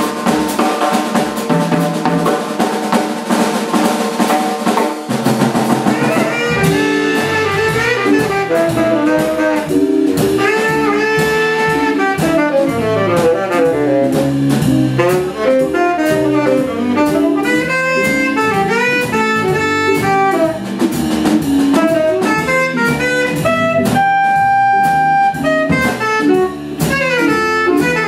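A live jazz fusion band playing: saxophone lines over electric guitar, drum kit and bass. The low bass comes in about five seconds in.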